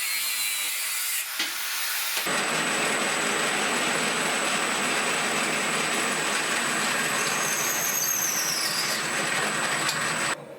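Home-made power tool driven by a salvaged washing-machine motor, working against material with a steady harsh noise. It eases briefly about a second in, comes back about two seconds in and cuts off suddenly near the end.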